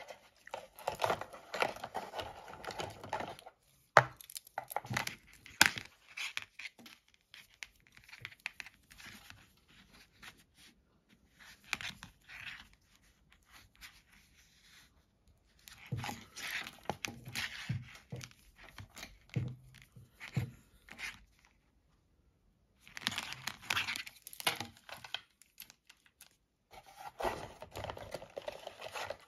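Hands rummaging in a cardboard box of mobile-phone accessories: cardboard and plastic bag packaging rustling and crinkling in irregular bursts with short quiet pauses. A sharp click about four seconds in is the loudest sound.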